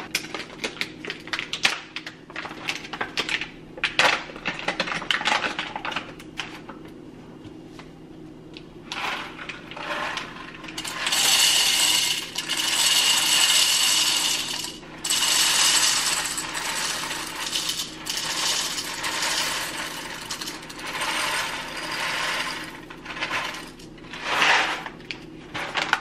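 Whole coffee beans poured from a bag into an espresso machine's bean hopper: scattered clicks and rattles at first, then a dense, steady rattle of beans pouring from about nine seconds in to near the end, with more clicks as the bag is handled.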